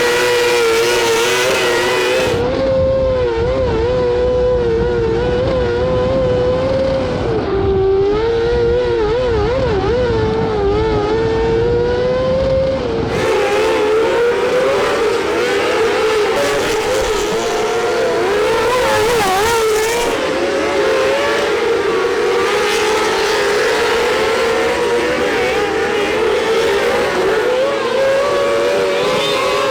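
Micro sprint race cars running hard on track, their high-revving motorcycle-type engines holding a steady, wavering pitch as the throttle comes on and off. The sound changes abruptly at about 2.5 and 13 seconds, and is duller and bassier in between.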